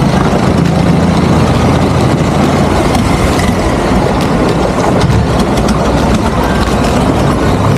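A motor engine running steadily under a loud, even rush of noise.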